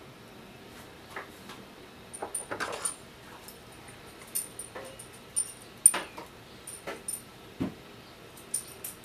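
Irregular light clicks and metallic ticks from a small screwdriver and carburetor parts handled over a bench, as the little screw that holds the metering-lever pin down is fitted into a weed eater's diaphragm carburetor. The sharpest click comes about six seconds in.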